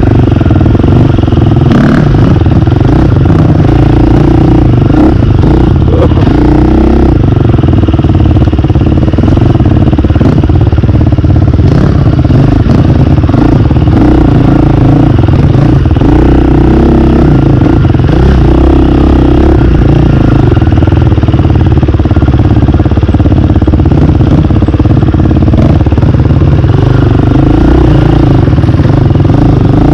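Off-road dirt bike engine running close up, the revs rising and falling every few seconds as the throttle is worked on a slow trail.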